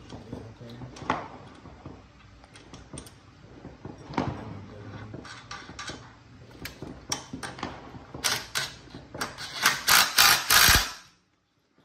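Cordless impact driver hammering on the crankshaft bolt of a Predator 212 engine, in several short rattling bursts over the last three seconds. Before that, light metallic clinks of parts being handled.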